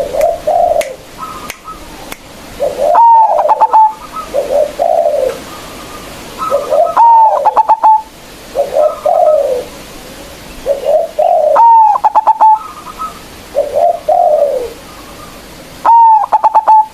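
Zebra dove (perkutut) singing its staccato cooing song: a phrase of quick, clipped coos followed by lower, falling coos, repeated four times about every four seconds.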